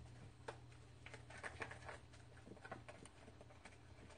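Red silicone spatula stirring a wet crab-stick and egg batter in a stainless steel bowl: faint, irregular scrapes and soft clicks.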